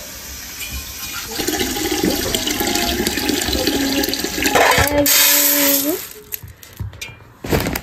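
Water poured from an aluminium kettle into an aluminium pot, its pitch rising as the pot fills. After that, dry grains are poured from a tin into a metal bowl with a soft rattle, and a sharp knock comes near the end.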